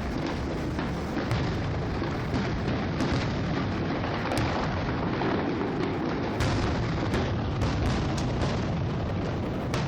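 Aerial fireworks bursting in quick succession: booms and sharp cracks overlapping into a continuous rumble, with sharper reports standing out every second or so.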